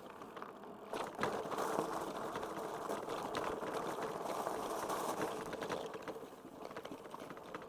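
Fat-tire electric bike riding noise: a steady rush of tyres and riding. It swells about a second in and fades near the end.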